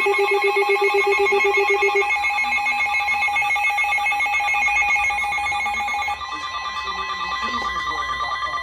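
Emergency Alert System attention tones from two tornado warnings sounding at once. A pulsing tone stops about two seconds in, a second steady tone drops out about six seconds in, and the last steady tone runs on and cuts off near the end.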